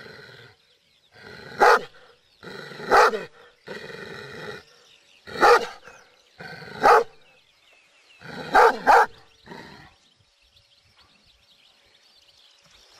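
Kangal shepherd dog barking: about six deep, loud barks, roughly one every second and a half, the last two in quick succession. The barking stops about ten seconds in.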